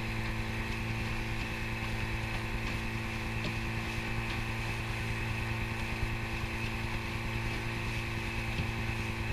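Tomos 10 two-stroke outboard motor running steadily at cruising speed, with water rushing along the hull of the small boat it drives.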